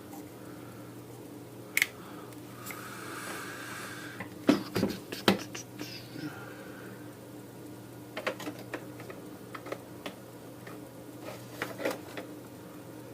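Scattered small clicks and taps of tools and parts being handled during a soldering repair, the loudest cluster a little past the middle, over a steady low hum.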